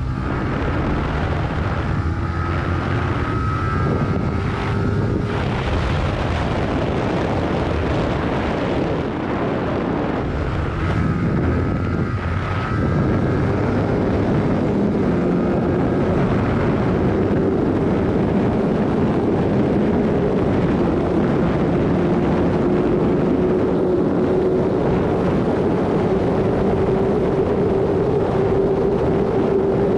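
Yamaha YZF-R15's single-cylinder engine pulling through the gears, its pitch rising twice in the first half and then holding steady at cruise, with wind rushing over the microphone.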